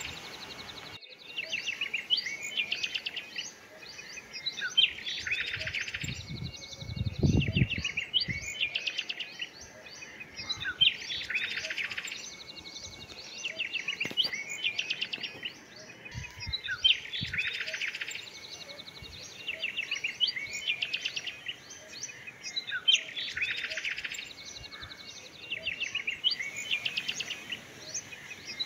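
Small birds chirping and twittering in quick, rapid runs, in a pattern that comes back almost identically about every six seconds, like a short birdsong recording played on a loop.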